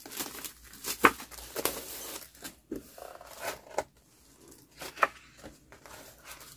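Clear plastic packaging crinkling and paper sheets rustling as a stack of scrapbook papers is slid out of its plastic sleeve and leafed through by hand. The rustles are irregular, with sharp crackles about a second in and again near five seconds.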